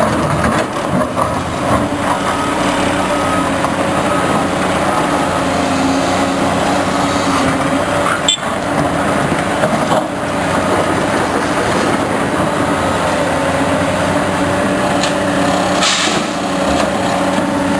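Heavy diesel road-construction machinery running steadily, with a single sharp knock about halfway through.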